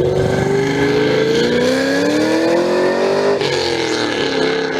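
A sports car's engine accelerating hard, its note rising steadily for about three seconds, then dropping abruptly about three and a half seconds in, as at an upshift, and pulling on at the lower pitch.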